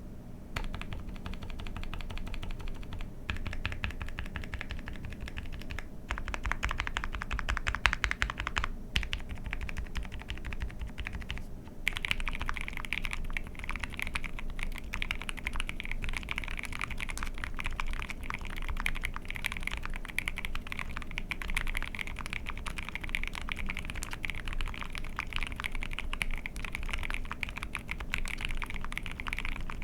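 Continuous fast typing on a mechanical keyboard: an ai03 Vega with a POM plate, Dinokeys Mint linear switches lubed with Krytox 205g0, and GMK keycaps, giving a dense stream of key clacks. The typing pauses briefly a few times, and from about twelve seconds in the clacks sound brighter.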